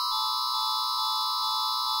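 Synthesized emergency-alert alarm tone: several high electronic tones held together as a steady chord, one stepping slightly lower just after the start, with faint ticks underneath.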